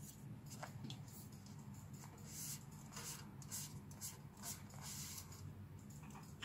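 Faint rustling, scraping and light taps of a hand turning two aluminium drink cans over on a carpet, over a steady low hum.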